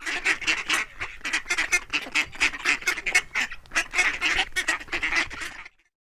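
Ducks quacking in a quick, dense run of repeated calls, several a second, that stops shortly before the end.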